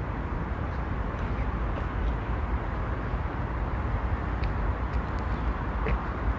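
Steady outdoor background noise: a low rumble with hiss over it, and a few faint short high chirps or clicks in the second half.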